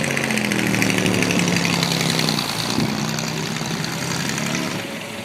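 A classic car's engine running at low speed with a steady, low exhaust note as the car rolls slowly past.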